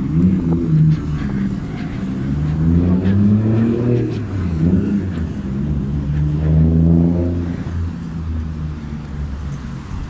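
Road traffic: a motor vehicle's engine accelerating, its pitch rising three times as it pulls away through the gears, then settling and fading near the end.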